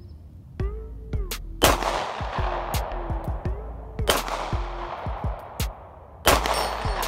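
Three pistol shots from a Beretta APX, about two and a half seconds apart, each with a long echoing decay, over background music.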